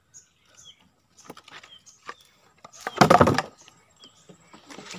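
Wire-mesh fish trap being worked against the side of a boat as a large dead giant snakehead is taken out of it: light clicks and knocks, then one loud rough scrape about three seconds in.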